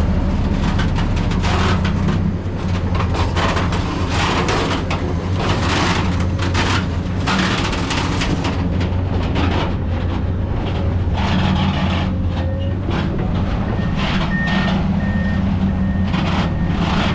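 Heavy truck engine running steadily as the truck manoeuvres, with irregular noisy bursts over it. Near the end a faint reversing beeper sounds repeatedly.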